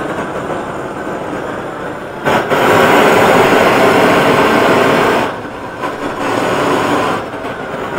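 SearPro propane searing torch burning with a steady rushing flame while tipped with the cylinder up. Having no check valve, it passes liquid propane through the nozzle. The rush grows louder about two and a half seconds in, dips about five seconds in, surges again, then eases off near the end.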